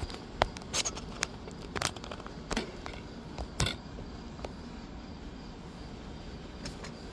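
Phone handling noise: a string of sharp clicks and scrapes over the first four seconds as the phone is moved and set in place, then steady outdoor background hiss with a faint, high insect drone.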